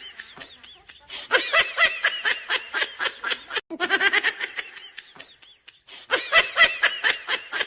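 Laughter in quick, high-pitched "ha-ha" pulses, coming in three runs with short breaks between them.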